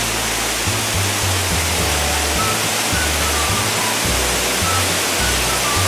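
Steady rush of water pouring out of a tanker truck's tank, over background music with a bass line and a light melody.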